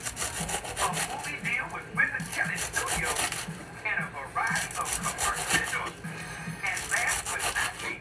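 Chef's knife chopping romaine lettuce on a cutting board: rapid crisp strokes crunching through the leaves, pausing briefly a few times.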